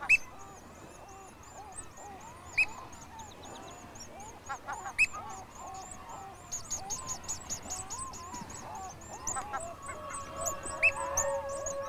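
Seabird colony calling: pigeon guillemots give a fast run of high, thin peeping notes, with a few louder sharp calls. Lower chattering calls of other seabirds run underneath, and a held lower call comes in near the end.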